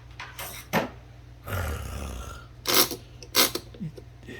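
Smith Premier No. 10 typewriter mechanism being worked by hand: several sharp mechanical clacks, and a rough rumbling noise lasting about a second starting around a second and a half in.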